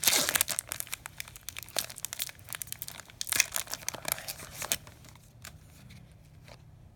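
Plastic wrapper of a hockey card pack crinkling and tearing as it is opened, with the crackling dense for about five seconds and then dying down to a few light ticks of cards being handled.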